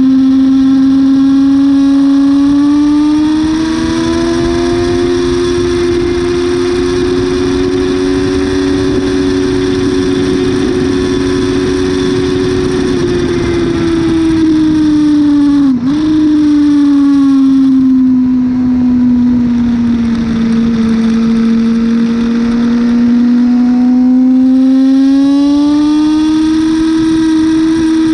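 Yamaha R6's inline-four engine running hard at high revs, with steady wind rush over it. The engine note holds high, sinks gradually through the middle with a brief sharp break about halfway, then climbs again near the end as the throttle opens.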